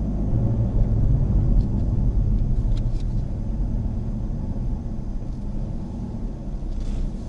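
Mazda Axela Sport hatchback on the move: a steady low rumble of engine and tyre noise.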